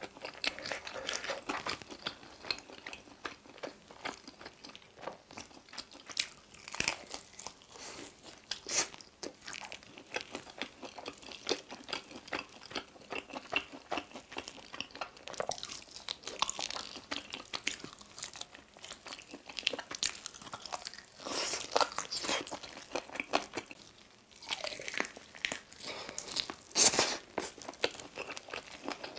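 Close-up eating sounds of spicy mala-sauced chicken wings and drumsticks: bites, wet crunches, sticky mouth smacks and chewing, coming in quick irregular clicks, with the loudest bite near the end.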